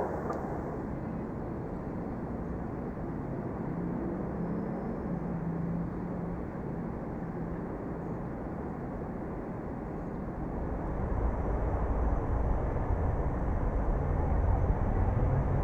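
Distant city traffic ambience: a steady low rumble of a town heard from afar. About two-thirds of the way through, a deeper, louder rumble swells in and holds.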